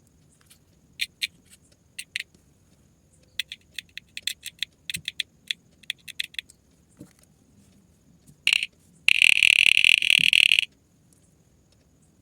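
Handheld torch (flashlight) switch clicking, first singly and then in quick runs. Near the end comes a short burst followed by a loud, harsh high-pitched buzz lasting about a second and a half.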